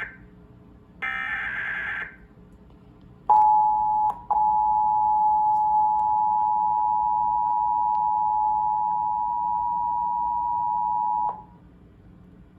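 Emergency Alert System test on a TV. The last burst of the digital SAME header, a harsh data screech about a second long, plays first. About three seconds in, the EAS attention signal begins: a steady two-tone alert tone (853 and 960 Hz). It breaks off briefly, then holds for about seven seconds before cutting off suddenly.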